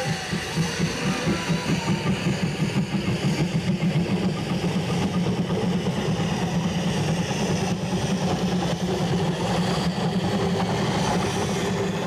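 Narrow-gauge steam locomotive pulling a train away, its exhaust chuffing rapidly at about four to five beats a second, the beats blending after a few seconds into a steady rush of steam and running gear as it passes close by.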